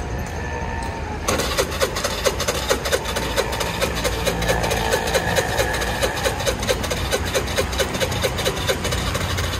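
A fuel-injected petrol engine, its empty tank just topped up with siphoned petrol, is being started. It catches about a second in and runs at idle with a rapid ticking beat.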